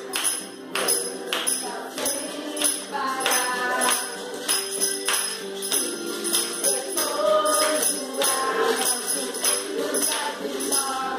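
A children's song: voices singing over jingle bells and small hand-held shakers played in time, a steady beat of about three strokes every two seconds.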